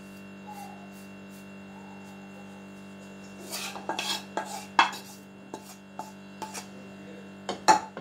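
Spatula scraping and tapping against a cooking pan and a steel mixing bowl as sautéed onion and greens are scraped into flour. There is a run of scrapes and clinks about three and a half seconds in, a few light taps, and a sharper clatter near the end, over a low steady electrical hum.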